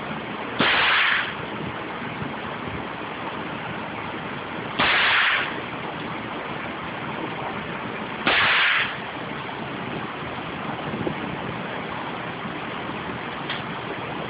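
Three single shots from a suppressed 9mm AR-style carbine fitted with a Gemtech Multi Mount 9mm suppressor, about four seconds apart. Each is a sharp report with about half a second of tail, over a steady hiss, and there is a faint click near the end.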